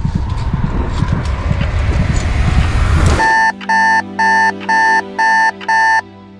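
Wind buffeting the microphone for about three seconds, then an alarm clock beeping: six even electronic beeps, about two a second, cut off abruptly as it is switched off.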